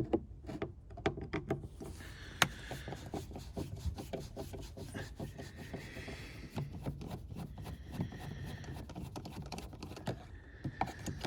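Torx T20 screws being undone by hand from plastic car door trim: a long run of small irregular clicks with light scraping and rubbing.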